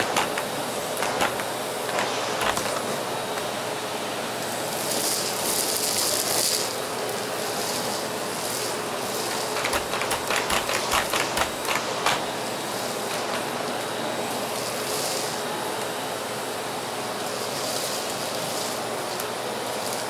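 Miele S6 canister vacuum cleaner running steadily with a constant motor tone while its floor head is pushed over carpet, sucking up strips of shredded paper. Bursts of hiss and, a little past half-way, a quick flurry of rattling clicks as the paper shreds are pulled up the wand and hose.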